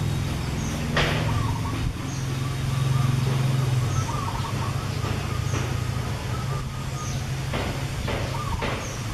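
Steady low hum of an engine running, with a short high chirp repeating about every second and a half and a few light rustling knocks, one about a second in and several near the end.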